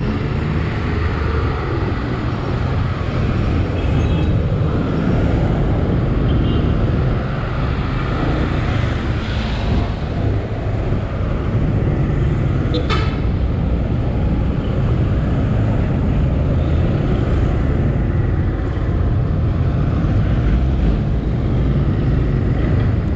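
Riding a motorcycle in city traffic: a steady, loud, low rumble of engine and road noise, with surrounding traffic, and a single sharp click about halfway through.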